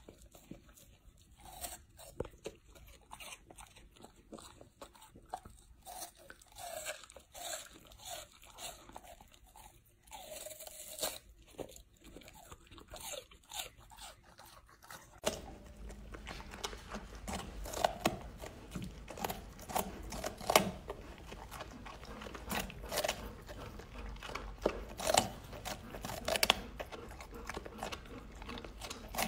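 Golden retrievers crunching and chewing raw vegetables: irregular, repeated bites and gnawing crunches, first on a hard root vegetable, then, after a change in background about halfway, louder crunches as a puppy chews a green vegetable.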